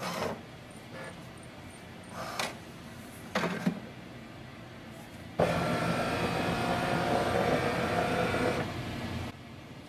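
HP DeskJet 2842e flatbed scanner scanning the printhead alignment page. A few faint clicks come first, then about halfway in the scan-carriage motor runs steadily for about four seconds and stops suddenly shortly before the end.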